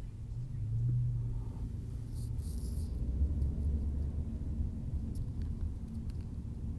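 A low, steady rumble that swells briefly about a second in and again around three seconds in.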